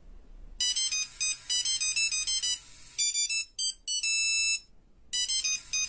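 A high-pitched electronic ringtone-style melody of quick beeping notes. It starts about half a second in and breaks off briefly a couple of times.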